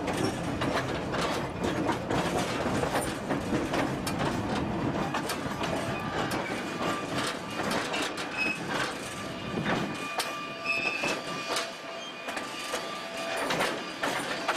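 Narrow-gauge passenger car rolling through a rail yard: steel wheels clicking over rail joints and the car rattling. Thin steady wheel squeals come in during the second half, and the low rumble drops away about two-thirds through.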